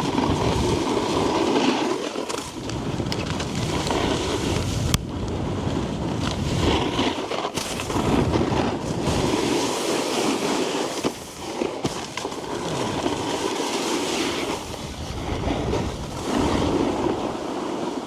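Snowboard sliding and scraping over packed snow: a continuous rough rumble that swells and eases as the board turns, with a couple of sharp knocks in the middle.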